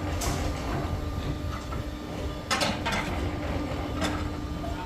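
Steel rebar clanking and scraping in a few short strikes, about two and a half seconds in and again near four seconds, over a steady low rumble and a faint steady hum.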